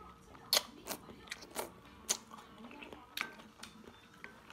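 Close-miked eating sounds: chewing, with a string of sharp, irregular wet smacks and clicks.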